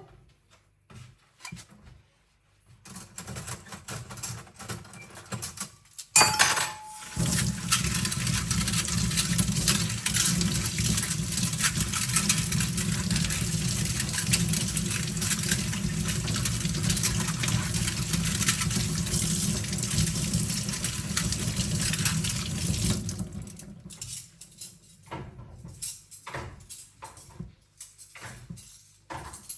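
Kitchen tap running steadily into a sink for about fifteen seconds while dishes are rinsed, starting just after a single metal clank with a short ringing tone about six seconds in. After the water stops, light clinks and clatter of cutlery and dishes being handled.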